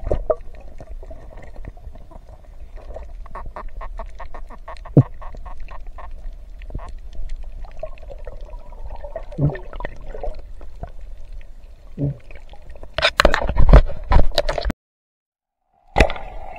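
Underwater sound of a night spearfishing dive: a run of sharp clicks and knocks over a faint hum, with a cluster of loud knocks about thirteen seconds in, as the spear works at a lobster among rock. The sound then cuts to dead silence for about a second before the muffled underwater hum resumes.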